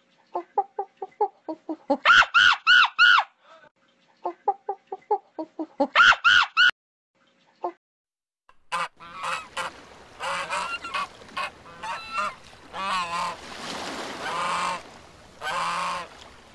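Domestic fowl calling: runs of short clucking notes broken by two bursts of loud, quickly repeated calls. After a brief silence, a flock of geese honks, many calls overlapping.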